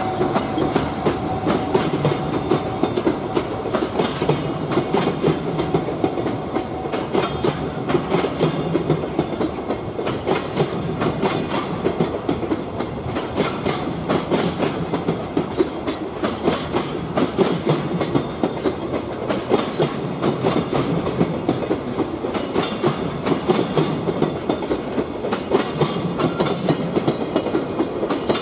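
JR Freight freight train passing: an EF210 electric locomotive, then a long string of Koki container flatcars rolling by, wheels clattering steadily over the rail joints. A high steady tone sounds in the first few seconds and then stops.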